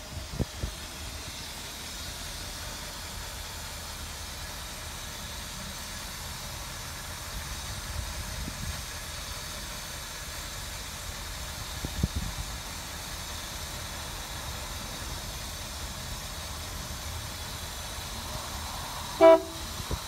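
1962 Lincoln Continental convertible's horn giving one short toot near the end, over a steady low background rumble with a few dull knocks.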